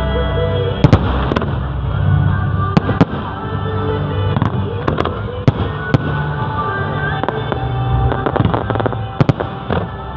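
Fireworks going off in a display: sharp bangs and crackles at irregular intervals, the loudest about a second in and again near the middle and near the end, over music playing.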